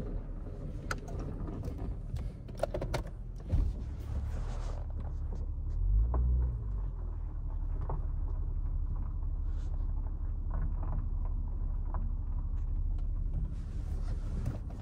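Toyota Camry's engine idling, a steady low hum heard inside the cabin, with clicks and rustles of someone moving about in the seats and a low thump about six seconds in.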